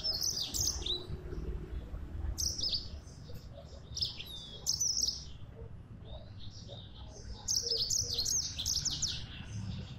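Yellow-fronted canary (Mozambique canary) singing in short bursts of high, quick twittering phrases, with a longer run of song near the end. A faint low hum lies underneath.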